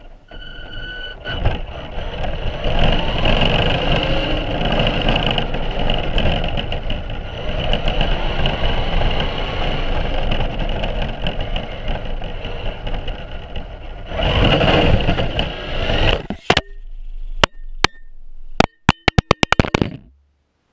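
Radio-controlled car driving over rough asphalt: a steady high motor whine with rumbling tyre and road noise. About 16 seconds in the driving noise stops and a string of sharp clicks follows.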